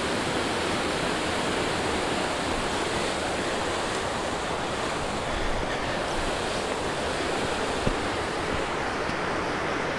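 Steady rush of the Gray Wolf River's fast water running over rocks, with one brief knock about eight seconds in.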